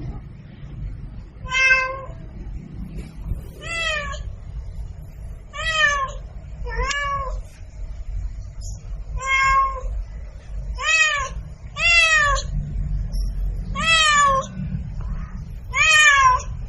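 Domestic cat meowing over and over: nine short meows about every two seconds, each rising then falling in pitch, over a low steady rumble.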